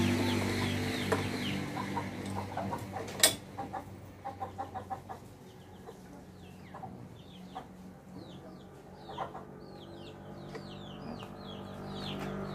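Metal clicks and clinks of wrenches on the motorcycle's side-mirror mount, with one sharp click about three seconds in. In the second half, birds make a run of short, high, falling chirps.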